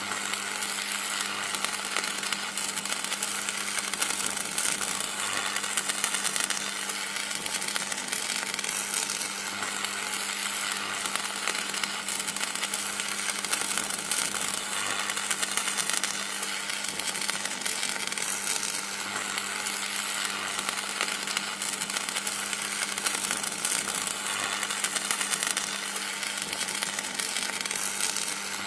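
Electricity sound effect: a steady electrical buzz and crackle over a low hum.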